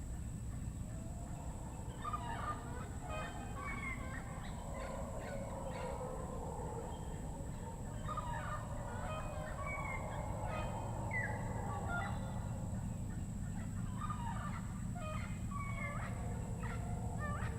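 Rainforest ambience: a distant chorus of howler monkeys roaring in a wavering, gobbling drone, mixed with scattered bird chirps and whistles. A steady high tone sits underneath.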